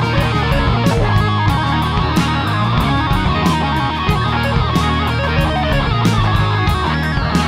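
Blues rock band recording playing instrumentally: electric guitar over bass guitar and drums, with a steady beat.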